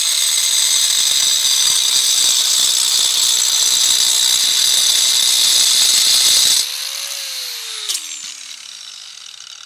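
Handheld angle grinder grinding along the edge of a thin natural stone slab, a steady high whine. About six and a half seconds in it is switched off and the motor spins down with a falling whine, and there is a short knock near the end.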